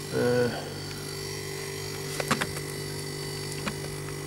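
Steady low electrical hum from a just-switched-on Tecumseh Silensis refrigeration condensing unit, with a few light clicks about halfway through.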